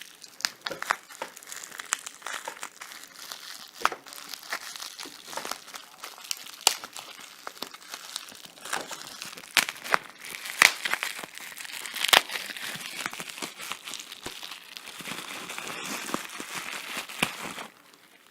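Packaging of a replacement iPhone 4S battery being crinkled and torn open by hand, with a run of sharp crackles and clicks that stops abruptly near the end.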